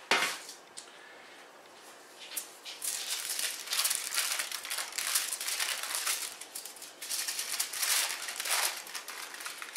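Aluminium foil crinkling and rustling as it is gripped and pulled on a countertop, in an uneven run of crackles starting about two and a half seconds in. A brief rustle at the very start.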